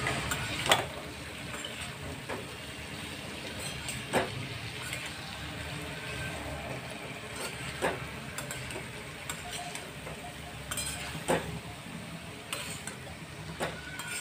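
Metal spatula stirring shredded cabbage into frying chana dal masala in a kadhai: a steady low sizzle with scraping, and about five sharp knocks of the spatula against the pan.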